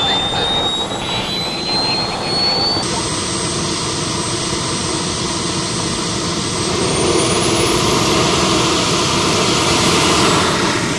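Small JetCat gas turbine on a jet-powered RC car running, a dense jet noise with a high whine that rises in pitch as the turbine spools up. The sound changes abruptly about three seconds in, then the whine climbs steeply again and the jet noise gets louder toward the end.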